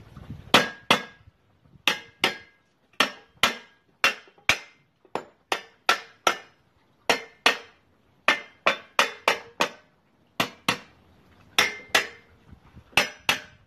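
A hammer striking a welded steel box-section frame over and over, about two blows a second and often in quick pairs, each blow ringing briefly. The frame is being hit to test that its welds hold.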